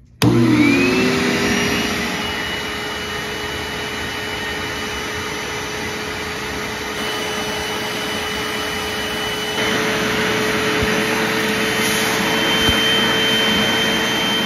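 Bissell Little Green Pet Deluxe portable carpet and upholstery cleaner switched on: its motor starts suddenly and spins up with a rising whine, then runs steadily, a little louder in the last few seconds.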